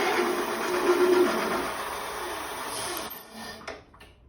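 Both the front and rear motors of an all-wheel-drive e-bike spinning together under power with a steady whine and whir, then winding down and stopping about three seconds in. Both motors running in the middle switch setting is the sign that the new AWD selector switch works.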